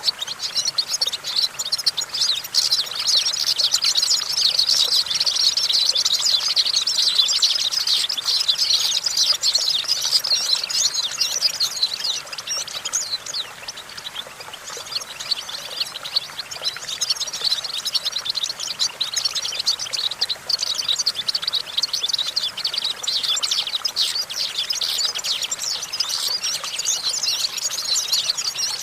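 European goldfinch singing: a fast, continuous twittering run of high, rapid notes that eases off a little around the middle before picking up again.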